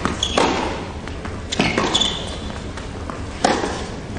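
Tennis rally: a racket strikes the ball three times, about one and a half to two seconds apart, each hit sharp and ringing in a large indoor hall.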